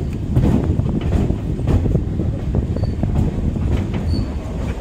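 EMU local train running on the track: a steady low rumble with irregular clicks and knocks from the wheels passing over rail joints and crossings.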